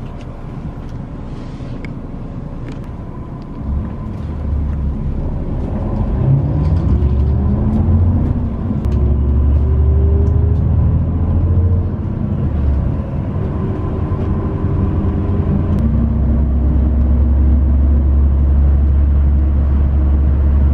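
Bus interior noise while under way: a low engine and road rumble that grows loud about four seconds in. The engine note rises twice as the bus accelerates through its gears.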